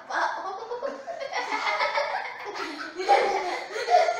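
Children laughing and giggling together.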